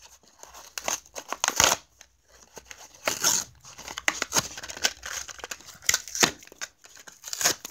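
A Matchbox toy car's blister pack being torn open by hand: the cardboard backing card ripping and the clear plastic blister crinkling as it is peeled away, in irregular crackles with several louder rips.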